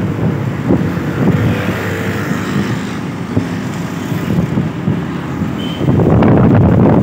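Wind buffeting the microphone over the rumble of a moving vehicle and road noise, with the gusts loudest about six seconds in.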